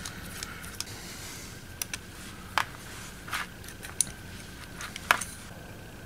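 Small metallic clicks and scrapes of a screwdriver working on a metal XLR connector shell as the connector is taken apart, a few scattered taps with the sharpest about five seconds in.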